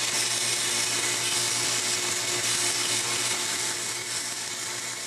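Small benchtop belt sander running with a steady motor hum while a clear plastic disc is pressed against the belt and its edge is sanded round. The sound drops slightly about four seconds in.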